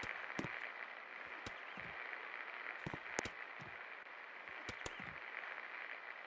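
56-inch National ceiling fan running with a steady whir, with scattered sharp clicks and a few soft low thuds at irregular intervals.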